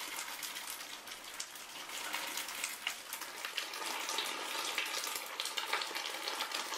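Drum turning in a homemade welded steel A-frame stand, its gritty contents tumbling with a steady crackling hiss full of fine ticks.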